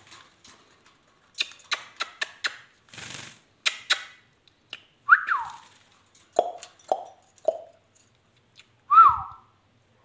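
Indian ringneck parakeet calling: a falling whistle-like call about five seconds in, three quick short notes, then another falling call near the end, the loudest sound. Before the calls come a run of sharp clicks.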